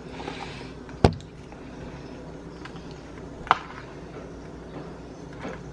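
Quiet room with a steady low hum and two sharp clicks, about a second in and about three and a half seconds in. The baking soda makes no sizzle, the sign of a 'girl' result in the baking-soda test.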